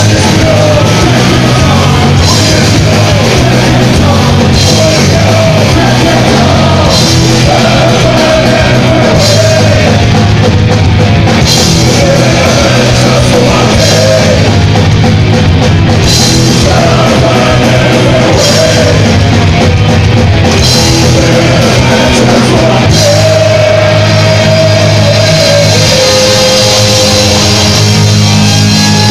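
Live rock band playing loud, with electric guitars, bass guitar and drum kit going the whole time and a crowd in front of the stage.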